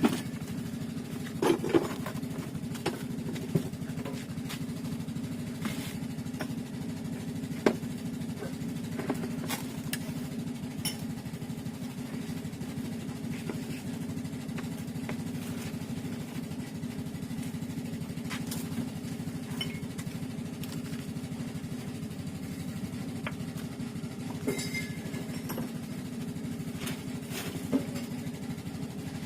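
Karcher K7 pressure washer running steadily, its motor and pump giving a constant low hum, with a few sharp clicks and knocks scattered over it.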